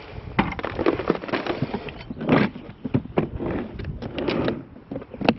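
Irregular knocks, rattles and scrapes of discarded household items being handled and moved about, with a sharp click near the end.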